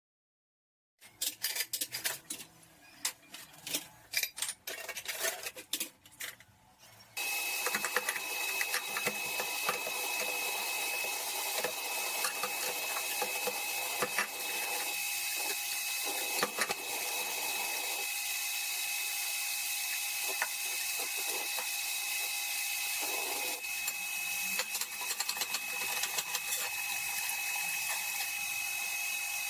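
Dishes clinking and knocking in a kitchen sink, then from about seven seconds in a tap running steadily with a thin steady whine in the water noise, as dishes are washed.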